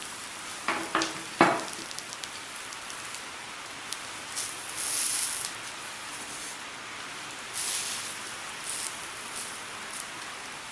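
Banana-leaf-wrapped sardine parcels sizzling on a hot tawa, with a few sharp knocks of utensils about a second in. The sizzling swells louder twice, around the middle and again a few seconds later, as the parcels are turned over.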